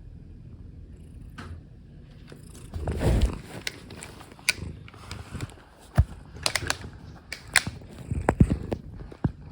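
Computer keyboard keys clacking and knocking irregularly as a cat lies and shifts on the keys, with one heavier thump about three seconds in.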